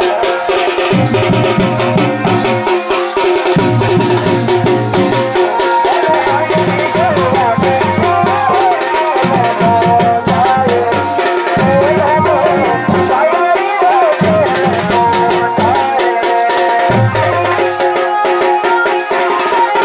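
Uttarakhandi dhol-damau drumming: a barrel dhol beaten with a stick and hand and a small damau kettle drum beaten with two sticks, playing a fast, dense folk rhythm. Above the drums, a steady drone and a wavering melody line that stands out from about six seconds in until about sixteen seconds in.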